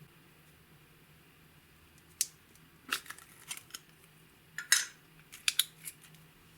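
A scattered run of sharp clicks and clacks from small hard objects being handled, starting about two seconds in, with the loudest clack near the five-second mark.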